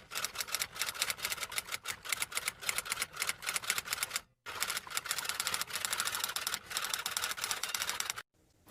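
Typewriter sound effect: rapid mechanical keystrokes clattering in quick succession, with a brief pause about four seconds in.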